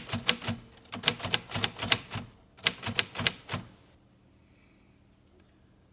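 1953 Royal Quiet De Luxe manual typewriter being typed on: a fast run of sharp key strikes, several a second, with a short break about two and a half seconds in. The typing stops after about four seconds.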